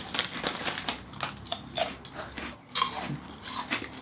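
Crunching and chewing on a crisp bacon-flavoured snack chip, a run of irregular crunchy bites.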